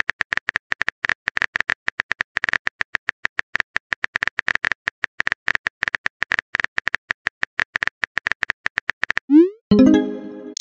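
Texting-app sound effects: a rapid, uneven run of phone-keyboard typing clicks, then, about nine seconds in, a short rising swoop and chime as a message is sent.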